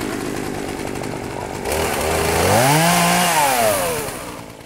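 Chainsaw running, then revved up about two seconds in; the pitch holds high briefly, then falls back and fades near the end.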